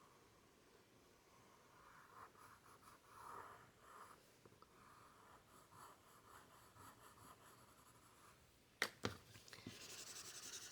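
Graphite pencil shading on paper, a faint scratching as a shadow is darkened. About nine seconds in come two sharp taps, then a louder, quick rubbing on the paper.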